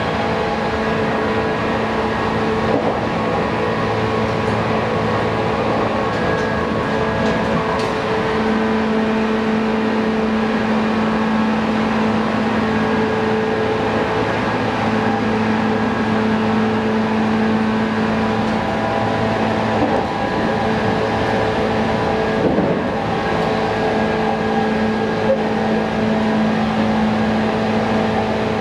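Onboard running sound of a JNR 185 series electric train's motor car: its MT54 traction motors hum at a steady pitch under the floor as the train runs at speed, over the rumble of wheels on rail.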